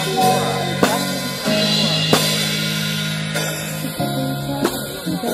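Band music playing: drum kit hits over sustained bass and guitar chords.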